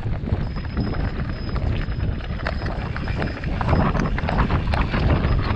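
Mountain bike rattling and clattering over rocky ground, a dense run of small knocks and clicks over a low wind rumble on the microphone.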